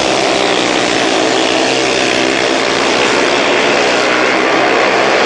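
Speedway bikes' 500cc single-cylinder methanol engines running flat out as three machines race around a shale track, a steady loud engine drone with several overlapping notes.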